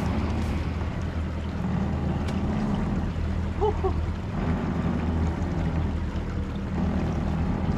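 Twin Mercury Verado 300 V8 outboards running at low speed, a steady low rumble, with wind on the microphone and water sloshing around the hull.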